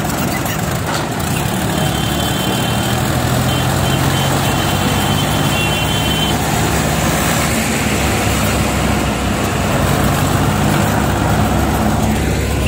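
Sonalika DI 35 tractor's three-cylinder diesel engine running steadily under way, heard from on board, with a truck's engine mixed in as the tractor passes close alongside it.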